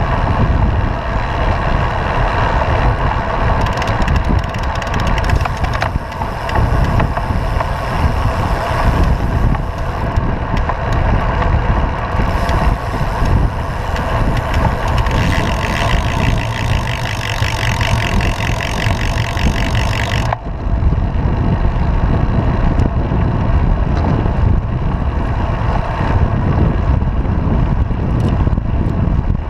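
Steady wind rumble on the microphone of a camera mounted on a moving road bike. The sound changes abruptly about two-thirds of the way through.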